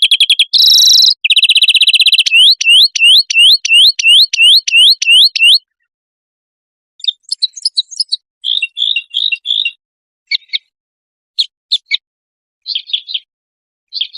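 Songbird song from a clean, loud bird recording: a fast trill, then a run of about eleven rising whistled notes at about three a second. After a short pause come scattered short chirps and twitters.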